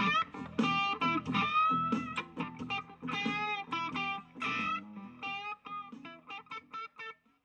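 Electric guitar played through an M-Vave BlackBox amp-simulator unit: a blues lead of single notes with string bends, thinning out into sparser, quieter notes near the end.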